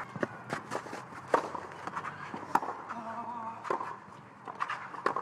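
Court ambience between points in an outdoor clay-court tennis match: faint voices from the stands and scattered sharp knocks and taps at irregular spacing, the loudest about two and a half seconds in.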